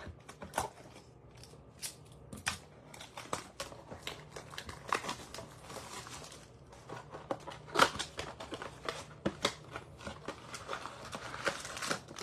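A cardboard blaster box of 2022 Capstone baseball cards being torn open by hand and its card packs slid out: irregular sharp snaps and clicks of cardboard, with stretches of crinkling and tearing.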